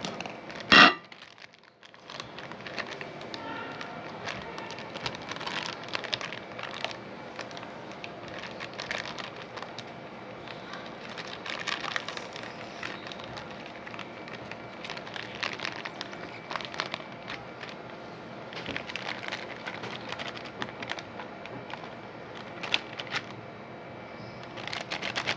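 Plastic packet of Crispy Fry breading mix crinkling and crackling as it is cut open with scissors and handled, with irregular small clicks throughout and one brief loud sound about a second in.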